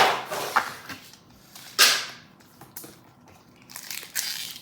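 Rustling and crinkling of foil booster packs and the box's packaging being handled, in a few short bursts with quiet gaps between.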